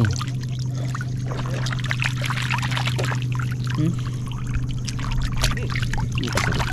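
Water pouring and trickling off hands as handfuls of wet mud and shells are lifted out of shallow water, with scattered small splashes and clicks. A steady low hum runs underneath.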